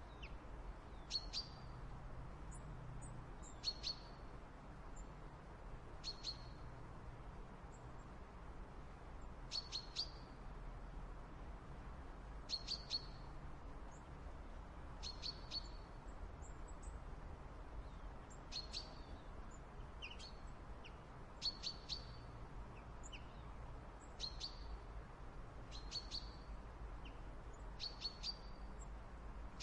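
Small backyard birds chirping: short, sharp calls that come in little clusters every two to three seconds, over a faint steady low rumble.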